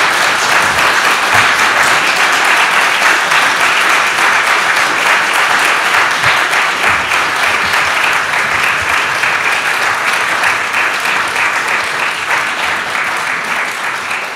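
Audience applauding: dense, sustained hand-clapping that begins to fade near the end.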